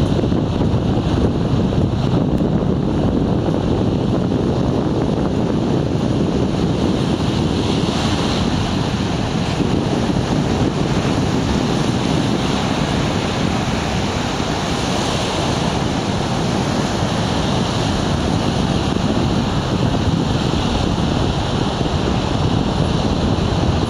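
Wind blowing across the microphone, with the wash of waves breaking on a sandy shore underneath, steady and unbroken.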